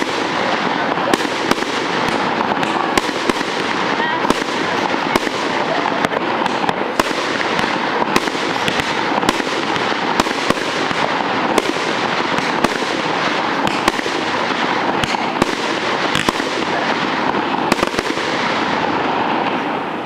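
Fireworks going off: a steady hiss thick with rapid sharp crackles and pops, which dies away near the end.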